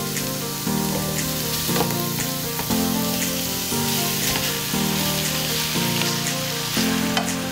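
Chopped onions and raw pork belly sizzling in a hot pot as the pork pieces are tipped in and pushed around with a spatula. Background music with chords changing about once a second plays alongside.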